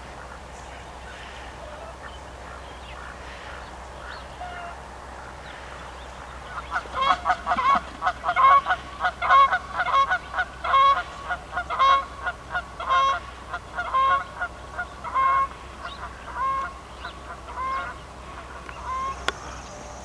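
Canada geese honking in flight: a run of repeated honks begins about seven seconds in, comes thick and fast at first, then spaces out and fades away near the end.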